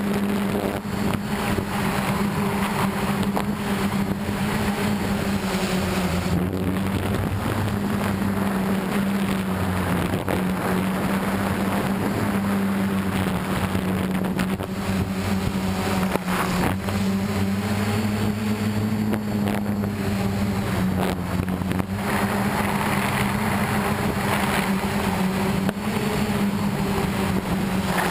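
Motors and propellers of a DJI F550 hexacopter humming steadily in flight, heard from its onboard camera, the pitch wavering slightly as the motors adjust. Wind rushes over the microphone throughout.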